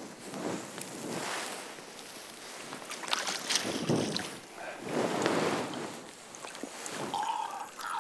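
Shallow water splashing and sloshing as a small pike is lifted from the margin by hand, in several swells.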